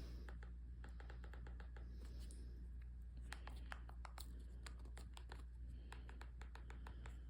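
Buttons on a handheld TV remote control clicking as they are pressed over and over in quick, uneven runs, with a faint steady hum underneath.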